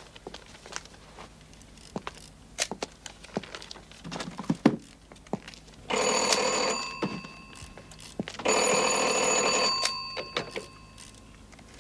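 Telephone bell ringing twice, each ring lasting about a second, starting about six seconds in. Before the rings, a few scattered clicks and knocks.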